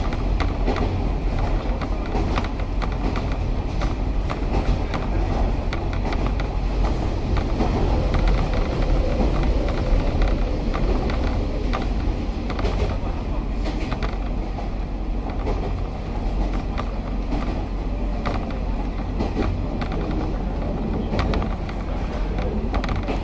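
Cabin noise of a KiHa 47 diesel railcar under way: a steady low rumble from the running gear and engine, with frequent small clicks and creaks from the carriage.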